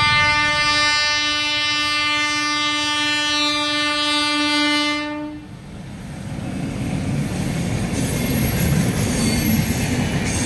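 Indian Railways WAP-7 electric locomotive sounding a long, steady horn on one pitch, which cuts off about five seconds in. After that comes the rumble and clickety-clack of the locomotive and its passenger coaches passing close by, growing louder.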